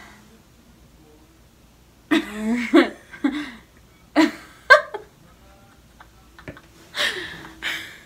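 Girls laughing and giggling in three short bursts.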